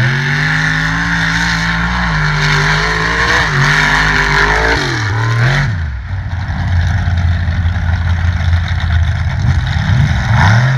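Mega truck race engine under hard throttle, its pitch climbing, dropping and climbing again as it accelerates. About halfway through it changes abruptly to a steady, loud engine drone with a hiss of spinning tyres and dirt as a mega truck runs across the dirt course.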